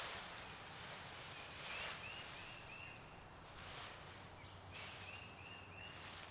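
Faint rustling of dry leaf litter being pressed onto a leaf-covered shelter, with a bird calling in two runs of short, quick chirps, one near the middle and one near the end.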